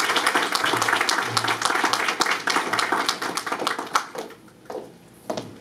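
Audience applauding in a banquet room, the clapping dying away about four seconds in.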